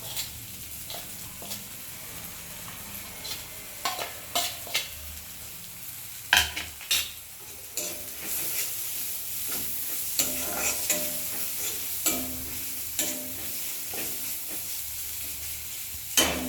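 Masala paste with powdered spices sizzling as it fries in oil in a pan, stirred with a spatula that scrapes and knocks against the pan, the loudest knocks about six seconds in and near the end.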